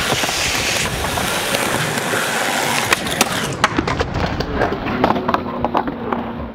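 Skateboard wheels rolling on concrete, a steady rumble and hiss. About three and a half seconds in the rolling dies down and gives way to scattered clacks and knocks of the board on the ground, with the skater down after a fall.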